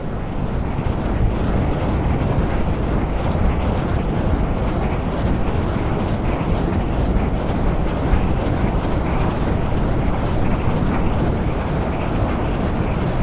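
Wind blowing and buffeting the microphone: a steady, loud, low rumbling gust noise.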